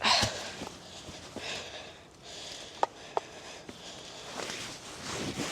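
Rustling and shuffling, with a loud scuffle at the start and two light knocks about three seconds in, as wood is handled between hatchet strikes.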